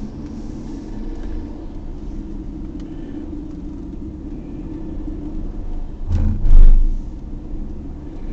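Steady low road and running rumble of a Luxgen U6 being driven, with one loud, low thud about six seconds in. The owner reports an abnormal noise from the car while driving.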